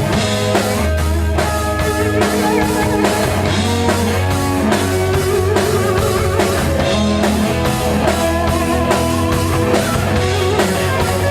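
Rock band playing live: guitars and a drum kit in an instrumental passage with no singing, drums keeping a steady beat under sustained guitar notes.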